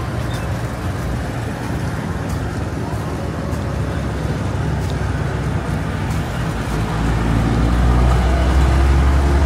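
Road traffic: the low, steady rumble of a motor vehicle's engine, growing louder about seven seconds in.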